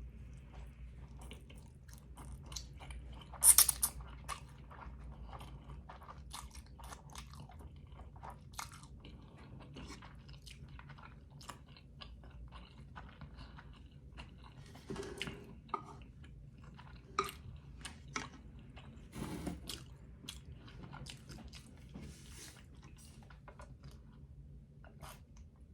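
A person chewing chili oil noodles and steamed dumplings, with many small mouth clicks throughout. A brief, louder sharp sound comes about three and a half seconds in, and a few smaller ones follow later.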